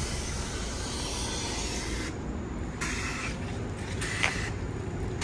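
Bus interior noise: steady low engine and drivetrain rumble with road noise, heard from inside the bus. One short sharp sound a little past four seconds in.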